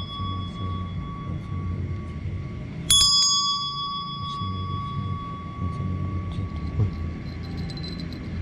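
Ornate metal hand bell struck once about three seconds in, ringing with several clear tones that fade slowly over the following seconds; the ring of an earlier stroke is still dying away at the start.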